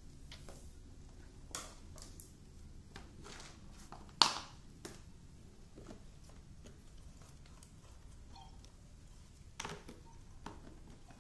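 Hard plastic toys being handled and set down, giving a few scattered sharp knocks and clatters, the loudest about four seconds in and another pair near the end.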